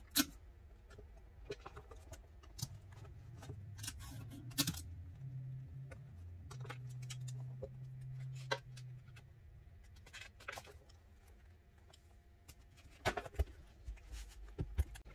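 Scattered light clicks, taps and rustles as a hardcover journal and paper are handled and opened on a pressing mat, with a faint low hum for a few seconds in the middle.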